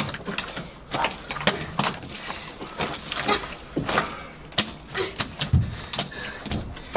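Large batch of homemade slime being kneaded and pulled by hand, giving off irregular wet clicks and pops.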